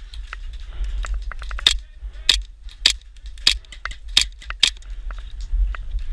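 Airsoft guns firing during a firefight: a string of sharp cracks, the loudest coming a little over half a second apart from a couple of seconds in, among many fainter clicks. A low rumble of wind runs on the microphone underneath.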